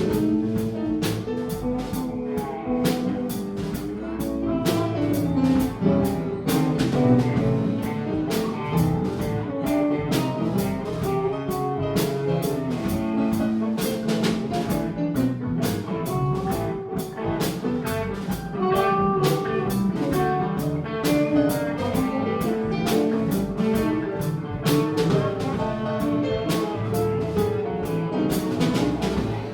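Live band playing an instrumental break, guitar over a steady drum-kit beat, with no singing.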